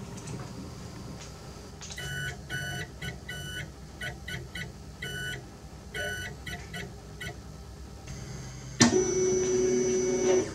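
Buzzy Morse code tones, short and long beeps keyed on and off in a dot-dash rhythm, under the on-screen word QST. Near the end a single louder tone is held for about a second and a half.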